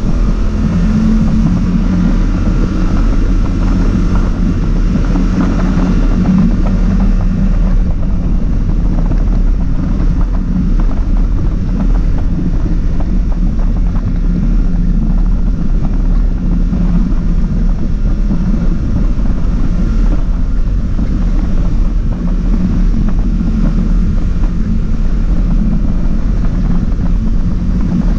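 ATV engine running steadily under way on a gravel trail, with wind noise on the microphone.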